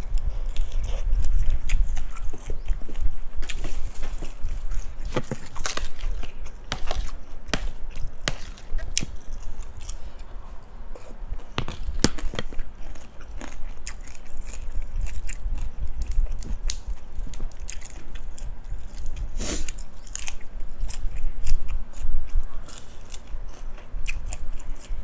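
Close-miked chewing and biting of spicy Thai cucumber salad with crispy pork rinds, with many sharp, irregular crunches.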